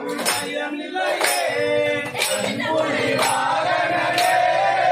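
Devotional song: a man singing a held, gliding melody over a sharp percussion beat about once a second.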